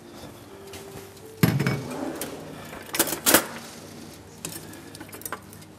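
Kitchen utensils and cookware knocking and clinking at the stove: a dull knock about a second and a half in, two sharp metallic clinks around three seconds in, then a few lighter clicks.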